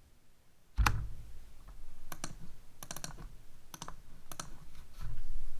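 Computer keyboard keys and clicks, tapped slowly and unevenly rather than in a run of typing. There is a louder knock about a second in and a low bump near the end.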